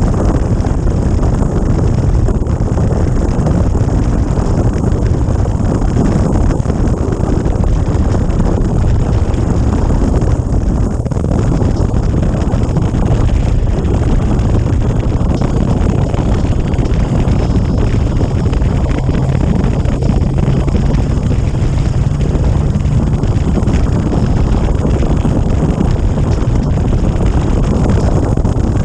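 Steady wind rush buffeting the microphone of a camera on a motorcycle at road speed, with the engine and tyres running underneath.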